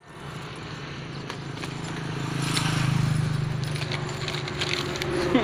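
A small engine putters steadily, growing louder to about three seconds in and then fading, with a few faint clicks over it.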